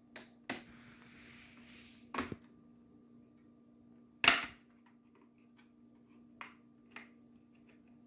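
Sharp plastic snaps and clicks as a flat-blade screwdriver pries a plastic trim strip off an HP all-in-one computer, its plastic pins popping loose. The loudest snap comes about four seconds in. A brief scraping hiss of tool on plastic runs through the first two seconds.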